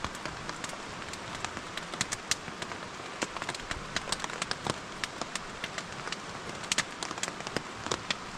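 Rain falling on a tarp overhead: a steady hiss with irregular sharp drop taps.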